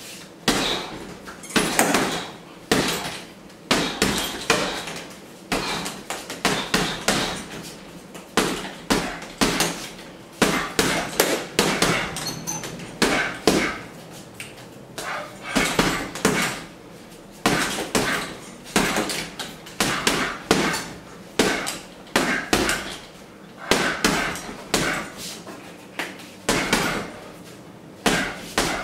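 Boxing gloves punching a hanging heavy bag, the blows landing in quick bursts of several at a time with short gaps between them.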